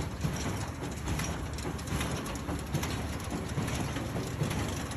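A 1968 Massey Ferguson Model 12 small square baler working behind a John Deere 4520 tractor: a steady mechanical clatter with irregular light knocks over the tractor's engine.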